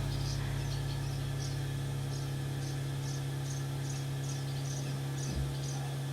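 Steady low hum of dairy barn machinery, with faint short high chirps repeating irregularly above it.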